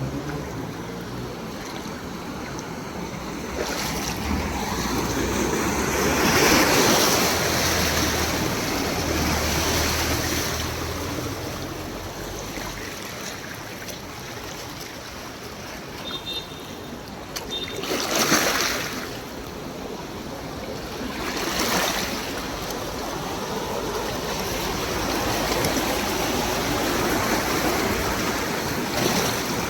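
Heavy rain and traffic on a flooded road: a steady wash of water noise, with louder swelling whooshes about six, eighteen and twenty-one seconds in.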